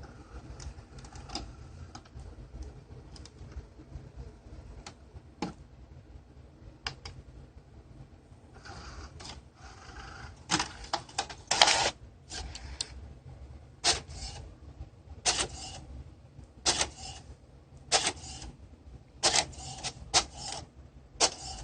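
HP DeskJet 6940 inkjet printer running, with its cartridge latch piece removed: scattered mechanical clicks, then from about halfway through a regular run of short rasping passes about every second and a half, typical of the print carriage sweeping across while printing.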